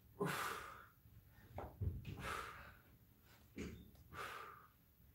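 Hard, breathy exhalations of people straining through a leg-raise ab exercise: three short puffs about two seconds apart, with a soft low thump about two seconds in.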